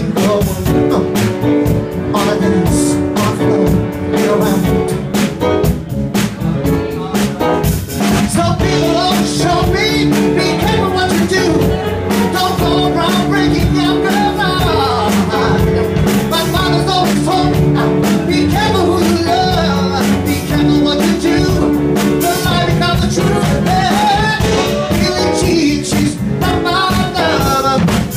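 Live soul band playing: a singer on a microphone over piano, electric bass guitar and a drum kit keeping a steady beat.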